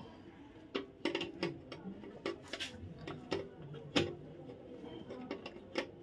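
Irregular light clicks and knocks of small metal parts and a hand tool being handled while fitting a room heater's element wiring, with a sharper knock about four seconds in.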